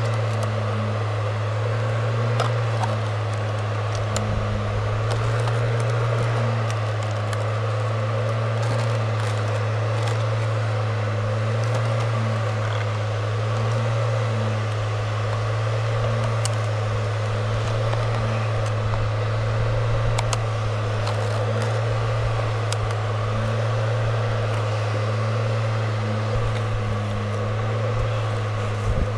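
Steady low hum of a small fan motor, unchanging throughout, with a few faint crackles and ticks of handling over it.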